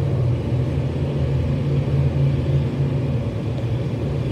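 Steady low rumble of vehicle engines running, with no sudden changes.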